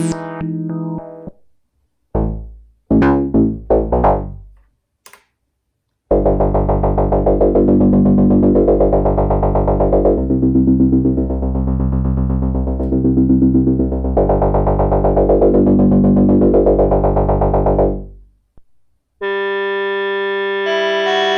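Arturia MicroFreak synthesizer playing factory presets: a few short plucked notes, then a long deep sustained chord with a pulsing, sweeping filter that changes chord twice, and after a brief gap a bright held chord near the end.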